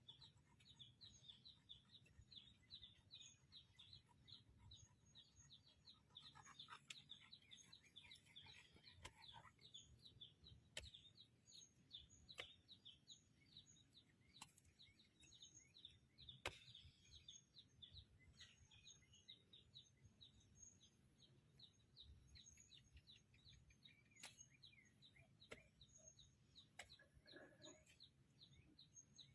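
Faint bird chirping: a steady run of short high chirps, about three a second, over a low background hum, with a few scattered clicks.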